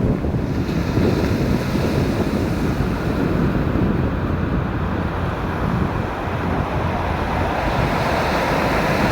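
Ocean surf breaking on the shore under steady wind rumbling on the microphone.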